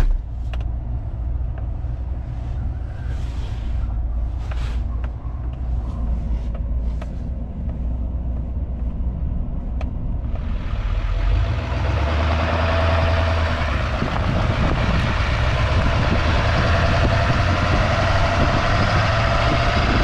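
Pickup truck running while it tows a stock trailer, with a steady engine rumble and scattered rattles and knocks at first. From about halfway a steady rushing of road and wind noise comes up as the rig picks up speed.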